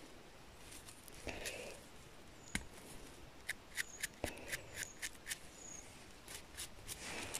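A freshly picked mushroom being cleaned by hand: a knife scrapes and trims the stem, then a small brush flicks dirt off the cap. This comes through as a series of short, sharp ticks and soft scrapes.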